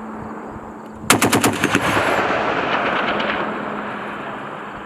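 M2 .50-calibre heavy machine gun firing one short burst of several rapid shots about a second in, followed by a long rolling echo that slowly fades.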